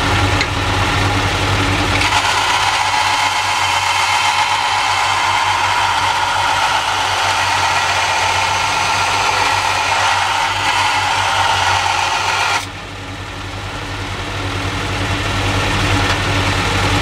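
Electric power tool running steadily with a steel knife blank being worked against it. The working sound grows fuller about two seconds in, drops away suddenly near three-quarters of the way through, then builds back up as the work is pressed in again.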